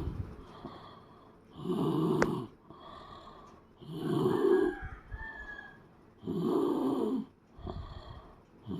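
Someone snoring: a loud, rough snore about every two and a half seconds, three in a row, with quieter breaths between.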